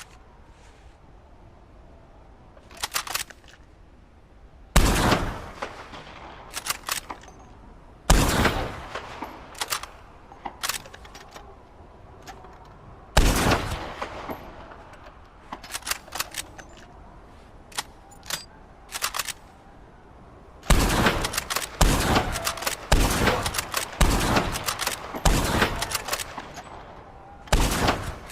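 Carcano bolt-action rifle firing, with the metallic clicks of the bolt being worked between shots. Three shots come several seconds apart, then a quicker string of about half a dozen shots roughly a second apart near the end.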